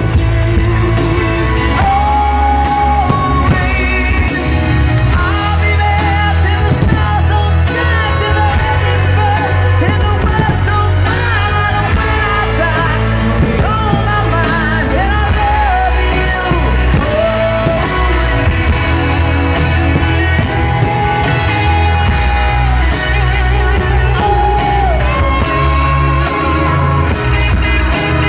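Loud pop-rock song: a singer holds long, wavering notes over a band with a steady bass.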